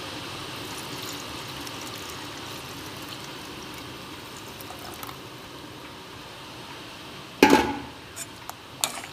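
Thin coconut milk being poured steadily from a jug into a pot of simmering chopped bottle gourd. Near the end comes one loud knock against the pot, then a couple of lighter clicks.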